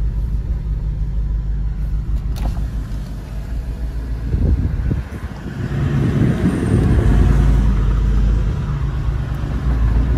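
A four-wheel drive's engine and tyres driving over a rough track, heard from inside the cab as a steady low rumble. There are a few clunks about four and a half seconds in, and the rumble grows louder from about six seconds in.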